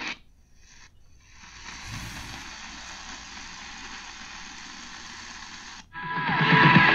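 Eton Grundig Edition Field BT portable radio being tuned up the medium-wave band. The audio drops out at the first tuning step, then steady static hiss plays on a frequency with no clear station. After a second brief dropout near the end, a strong station comes in loud.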